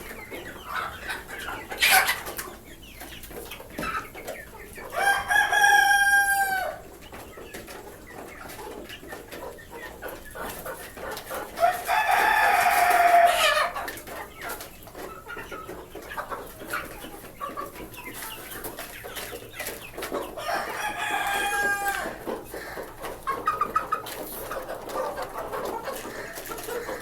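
Desi roosters crowing three times, each crow about two seconds long, over steady clucking from a flock of desi hens.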